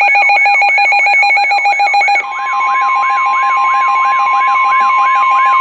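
Weather radio alert alarm: rapid pulsing beeps with a warbling sweep about three times a second. About two seconds in it is joined by the steady 1050 Hz NOAA Weather Radio warning tone, which heralds a new warning broadcast.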